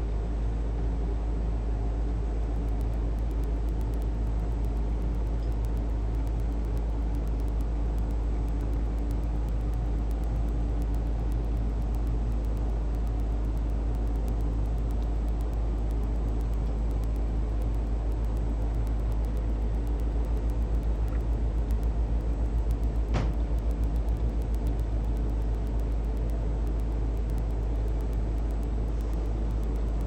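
A steady low hum or rumble with no clear rhythm, and a single sharp click about three-quarters of the way through.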